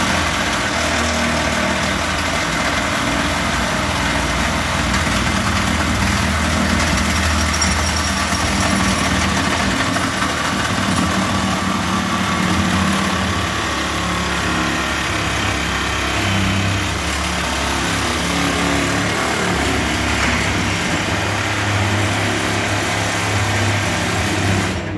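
A handheld cordless power tool running continuously at the PVC fitting, with a steady motor hum. It starts abruptly and cuts off near the end.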